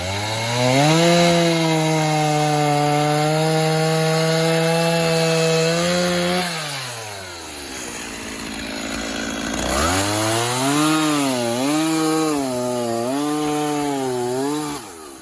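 Chainsaw revving up and held at high speed for several seconds, then dropping back to idle. It revs again near the end, its pitch dipping and recovering about once a second as it cuts notches into a poplar log, before stopping suddenly.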